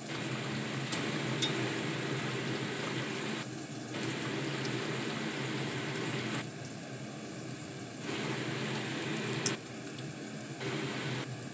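Water with chicken gizzards boiling hard in a pan, a steady bubbling with a few faint clicks.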